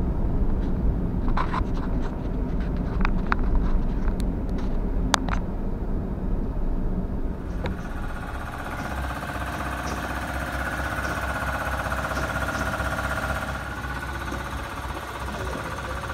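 In-cabin road and engine noise of a Suzuki Every kei van driving on a snow-covered road: a steady low rumble with scattered sharp clicks. About halfway through, the rumble drops and a steadier hiss takes over.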